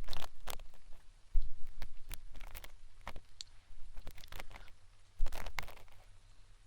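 Ear pick scraping and crackling right inside the ear, close to the microphone, working loose a large piece of earwax. Irregular sharp crackles and scratches, with two dull thumps about one and a half and five seconds in.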